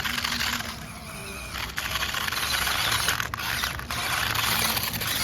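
Small RC crawler's electric motor and plastic gearbox whirring and ratcheting in three bursts of throttle, with brief letups between them.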